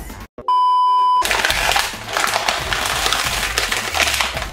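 A steady electronic beep lasting under a second, then about three seconds of crinkling from clear plastic wrap being handled around a toy carrying case, with music underneath.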